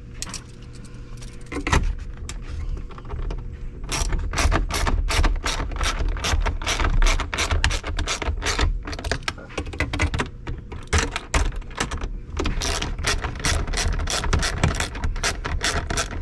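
Hand ratchet on an extension clicking rapidly as it snugs up the overhead console's bolts, starting about four seconds in after a single knock, with a couple of short pauses.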